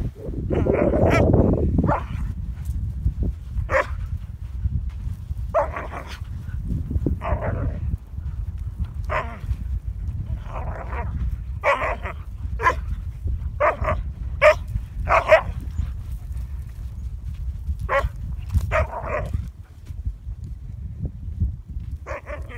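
A dog barking repeatedly in short, separate calls, over a steady low rumble.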